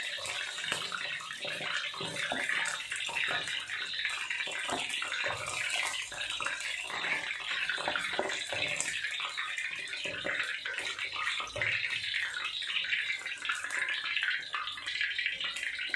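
Chicken feet deep-frying in hot oil in a wok, sizzling and crackling steadily.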